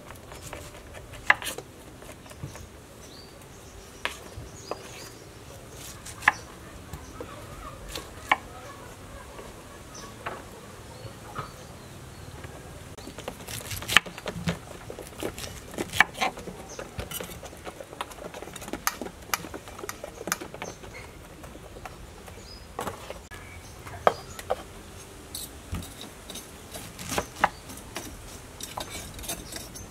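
Kitchen knife cutting peeled pineapple on a wooden cutting board: irregular sharp knocks as the blade goes through the fruit and taps the board, sometimes several in quick succession.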